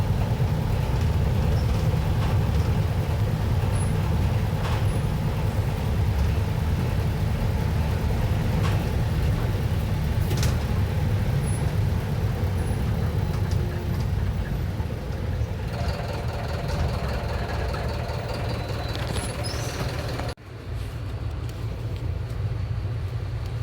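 Mercedes-Benz OF-1721 BlueTec 6 bus's four-cylinder diesel engine running, a steady low drone with occasional light clicks. About twenty seconds in the sound drops out for an instant and comes back a little quieter.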